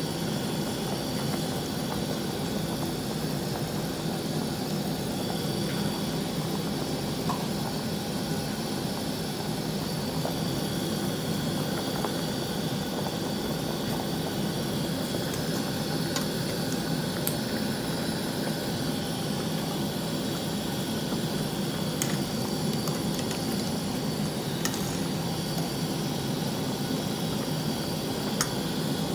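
A pot of beef and pork sinigang broth at a rolling boil on the stove: a steady rushing, bubbling noise, with a few light clicks in the second half.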